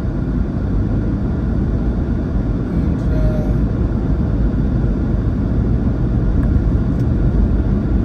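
Steady low rumble of a moving car heard from inside the cabin: tyre and engine noise while driving on a snowy highway.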